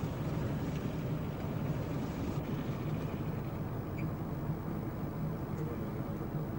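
Steady low engine drone with a hiss over it; the higher hiss thins a little over two seconds in while the drone carries on unchanged.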